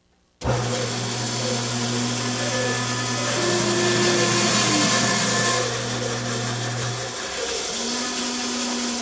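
Bandsaw switched on about half a second in and running, its blade cutting off a small nub of turned madrone held in a sled. The cut is loudest in the middle few seconds.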